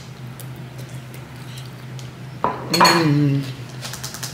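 Metal cutlery clinking and scraping against a ceramic bowl while eating, with a brief hummed vocal sound about three seconds in and a run of quick light clicks near the end as the bowl is lowered.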